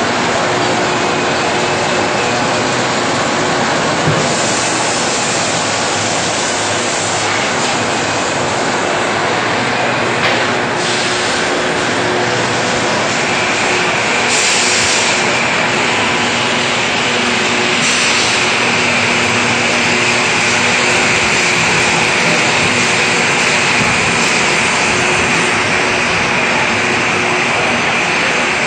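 Steady din of a tractor assembly plant's shop floor: machinery hum and hiss, with sharp knocks about four and ten seconds in. A hissing grows louder from about halfway through.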